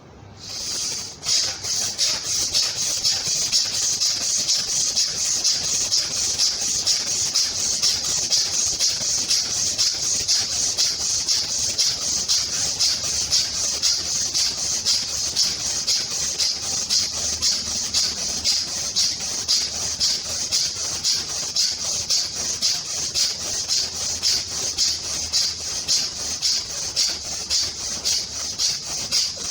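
Bhastrika pranayama (bellows breath): a man breathing forcefully in and out through the nose, a hissing rush of air in a rapid, even rhythm of breath strokes, starting about half a second in.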